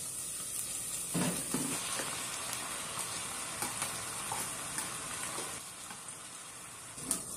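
Sizzling in a saucepan as shredded chicken is added to sautéed onion and tomato, with a few light knocks from a spoon scraping it out of its container.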